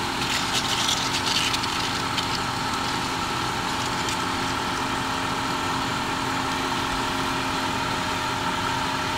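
Mercedes-Benz M111 four-cylinder petrol engine idling steadily with the bonnet open, with some faint crackling in the first couple of seconds. The engine is overheating and boiling over from a blown head gasket.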